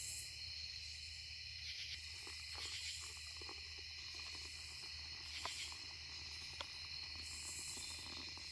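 Steady chorus of night insects such as crickets, chirring in a pulsing high drone, with a few faint clicks and knocks of camp gear being handled.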